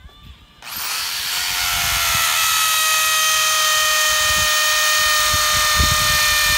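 Corded electric drill drilling a hole: the motor whine starts abruptly about half a second in, drops slightly in pitch as it settles, then runs steady at speed.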